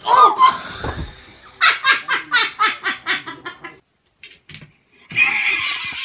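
A person laughing hard in a quick run of rhythmic ha-ha bursts, about five a second. It is preceded by a short cry that falls in pitch, and followed by a breathy, wheezing stretch of laughter.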